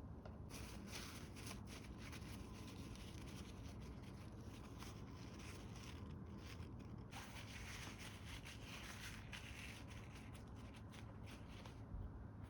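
Faint, irregular rustling and crinkling, like plastic bags or wrapping being handled, with light scrapes; it starts about half a second in and pauses briefly a little past the middle.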